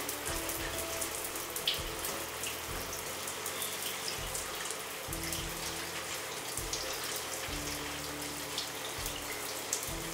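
Shower water running steadily, with faint ticks of water splashing.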